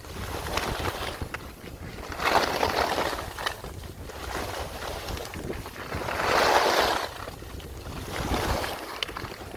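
Skis hissing through fresh powder snow in a series of turns, each turn a swelling swoosh a couple of seconds apart, with wind rushing on the microphone.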